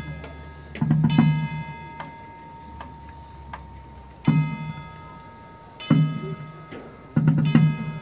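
High school marching band field show music in a quiet, sparse passage: chords struck roughly every second and a half, each with a low drum hit under ringing higher tones.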